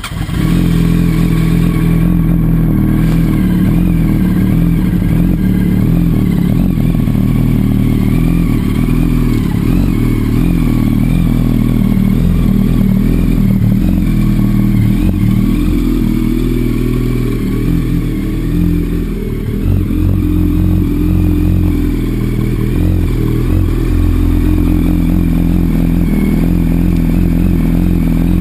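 2007 Yamaha R1's inline-four engine idling steadily, just after starting up, through an aftermarket slip-on exhaust.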